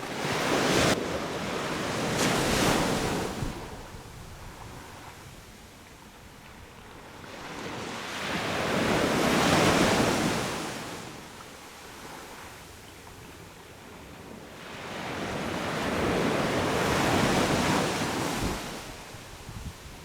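Sea waves breaking on a beach: three surges of surf that rush in and fade, about one every seven seconds.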